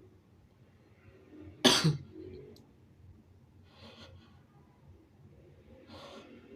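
A single sharp, loud sneeze about a second and a half in, after a short intake of breath, followed by two softer breaths.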